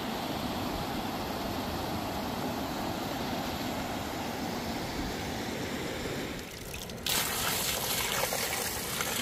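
Water trickling steadily, then about seven seconds in a jet of water shoots up and gushes out, a sudden louder spray splashing down onto wet mud.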